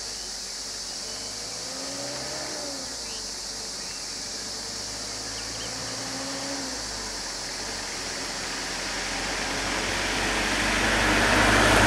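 Road traffic: vehicles moving slowly past, with a few faint rising-and-falling engine tones early on. Over the last few seconds a vehicle's engine and tyres grow steadily louder as it approaches.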